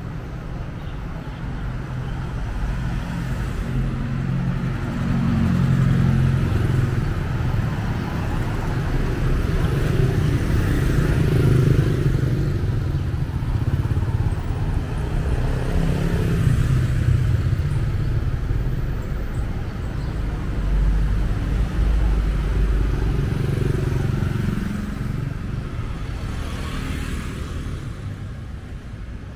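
Street traffic: motor scooters and cars passing close by one after another, their engines swelling and fading as each goes past, quieter near the end.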